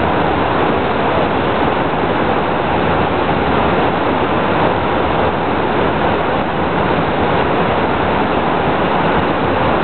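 Steady rushing of river water pouring over a dam and rocks.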